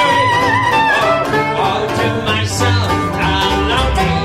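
Small trad-jazz band playing live: a soprano saxophone holds a melody line with vibrato for about the first second, then banjo strumming carries on over plucked double bass.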